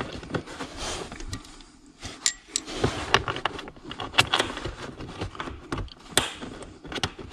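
Scattered light clicks and knocks at irregular times as hands handle a car's accelerator pedal assembly and set its mounting bolts back in.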